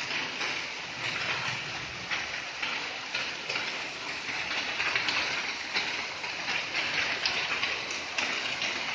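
Heavy rain pouring down: a steady hiss of rainfall with a dense crackle of individual drops striking nearby surfaces.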